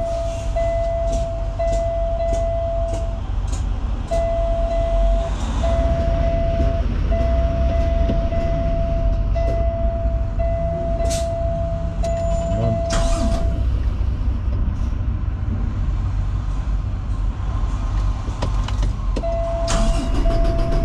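Semi truck's diesel engine idling with a low rumble, heard from the cab. A steady warning tone sounds in long stretches with short breaks, stops about 13 s in and comes back near the end. A regular light ticking, about every two-thirds of a second, runs through the first several seconds.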